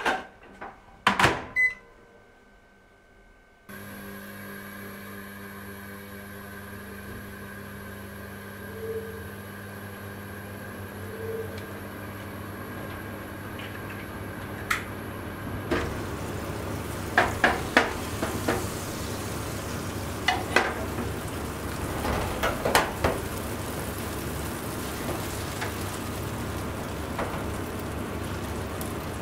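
A microwave oven door clunks shut and a button beeps, then the oven hums steadily as it heats the soaked baguette slices. Later, butter sizzles and crackles in a frying pan as the bread is fried.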